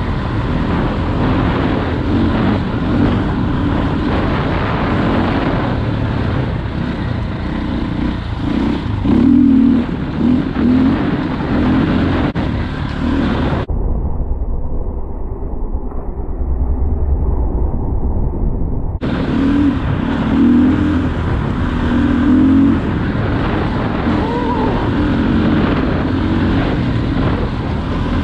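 2001 KTM EXC 400's single-cylinder four-stroke engine running under way, its revs rising and falling. About halfway through, the sound turns muffled for around five seconds.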